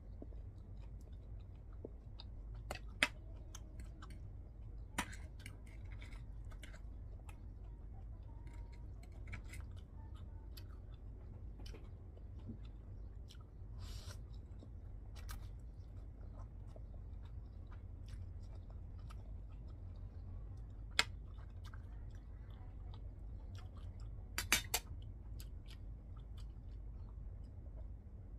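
Close-up eating sounds of a person chewing noodles and fried shrimp, soft and continuous, with a few sharp clicks scattered through. A steady low hum runs underneath.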